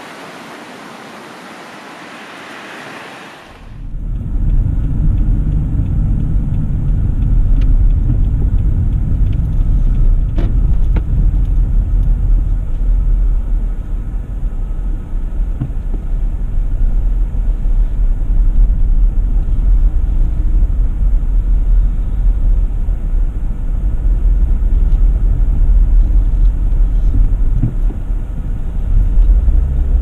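A steady hiss for the first few seconds, then an abrupt change to a loud, steady low rumble of a car on the move: road and engine noise while driving.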